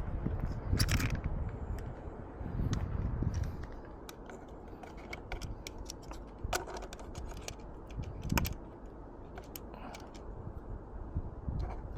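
Camera clamp mount being handled and fitted by hand: scattered small clicks and creaks from its parts, with a few dull handling bumps.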